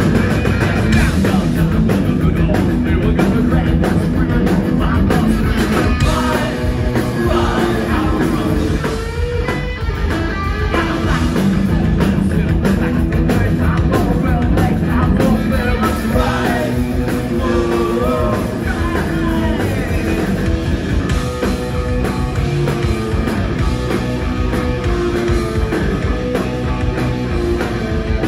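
Punk rock band playing live: loud distorted electric guitar through Marshall amplifiers, bass and drums, with a sung vocal over them.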